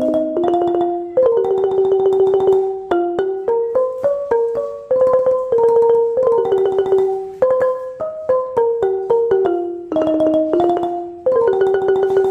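Ranat ek, the Thai wooden xylophone, played with smooth padded sticks: a melody of held notes, each sounded by quick repeated strokes, often two notes an octave apart. The soft sticks give the warm, sweet sound of the instrument.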